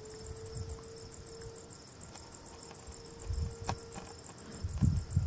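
An insect chirping: a steady, high-pitched pulsing trill that runs on evenly. One sharp click about three and a half seconds in, and low rumbling near the end.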